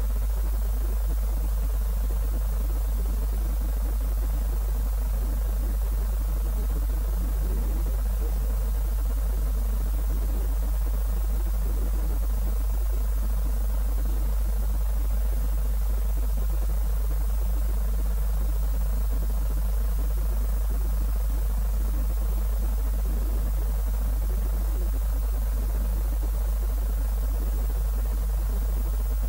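A steady low hum under a faint, even hiss, unchanging throughout.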